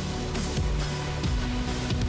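Background music with a steady beat, about two drum hits a second, over held bass notes.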